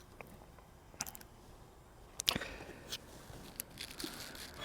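A few short, faint clicks and knocks, the loudest about two seconds in, against a quiet background.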